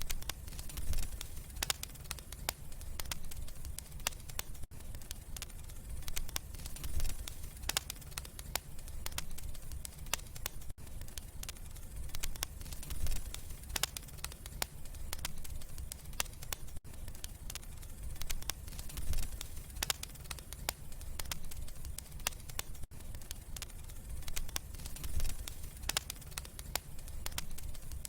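Wood fire crackling and popping over the low rumble of the flames. The same few seconds of crackling repeat about every six seconds, as a loop.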